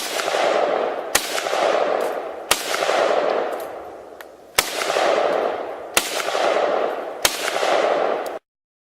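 AK-47 rifle firing semi-automatic: six single shots spaced one to two seconds apart, each followed by a long rolling echo. The sound cuts off abruptly near the end.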